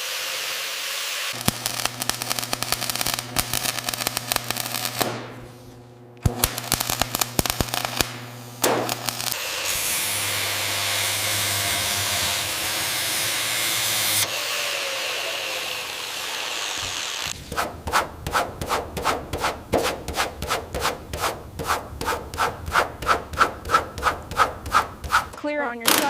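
A run of short, cut-together restoration workshop sounds: a power tool running with a fast ticking over a low hum, a steady hiss, then rhythmic sanding strokes at about two a second.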